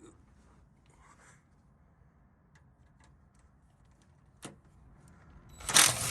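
Faint clicks of tools being handled, a sharp click about four and a half seconds in, then near the end a cordless drill with a 12 mm socket whirs for about a second, spinning out a splash-shield bolt.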